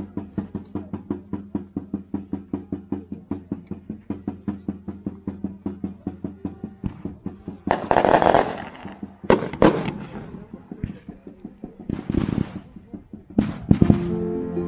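Music with a quick steady beat, then from about eight seconds in a string of fireworks going off: several loud sharp bangs and bursts of hiss.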